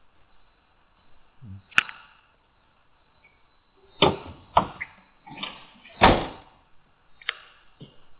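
A single sharp click about two seconds in, then a run of separate knocks and thumps from about four seconds, the loudest near six seconds.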